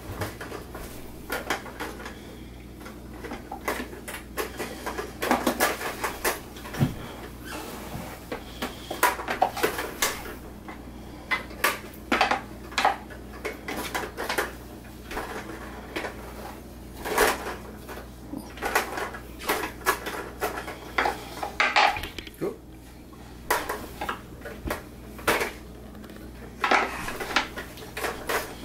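Irregular knocks and clatter of toys on plastic high-chair trays: wooden peg-puzzle pieces tapping and a plastic pop-up ball toy being pressed.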